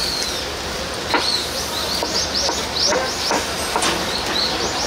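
Steady hiss with irregular sharp knocks, and a quick run of short high squeaks about two seconds in.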